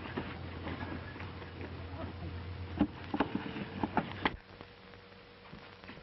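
A steady low rumble under scattered knocks and thuds, with a cluster of sharp knocks about three to four seconds in. The rumble cuts off abruptly a little after four seconds, leaving a faint hiss.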